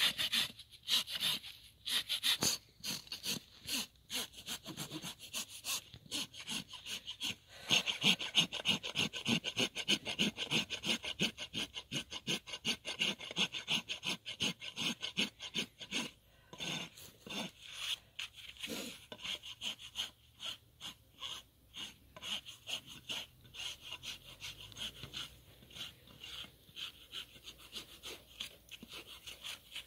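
Steel hoof rasp filing a horse's hoof during a barefoot trim, in rapid back-and-forth scraping strokes. The strokes are heaviest through the middle and lighter toward the end.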